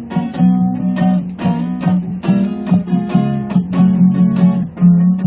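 Acoustic guitar strummed in a steady rhythm, about three strokes a second, playing an instrumental break in a song.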